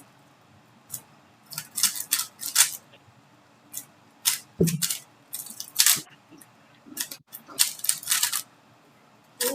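3x3 Rubik's cube being turned quickly during a timed speedsolve: runs of rapid plastic clicking and clacking, broken by short pauses.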